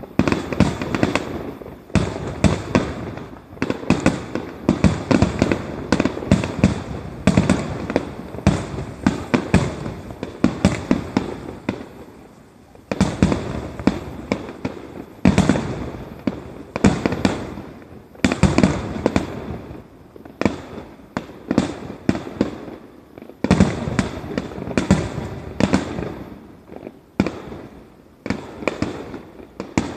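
Aerial firework shells bursting in a rapid barrage, bang after bang overlapping, with short lulls about twelve seconds in and again near the end.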